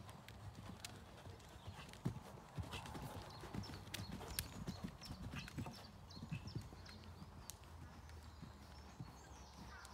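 Hoofbeats of a ridden horse cantering on a soft all-weather arena surface: dull, irregular thuds, loudest for a few seconds in the middle as the horse passes close by.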